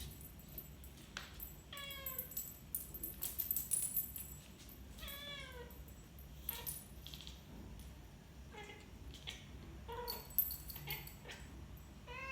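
A cat chirping: a string of short, irregular chirps and clicks broken by about four longer calls that fall in pitch.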